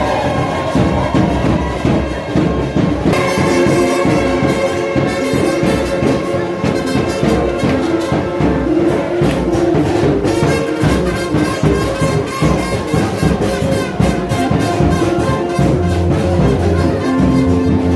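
Brass band playing music with a steady beat, trumpets and trombones carrying the tune.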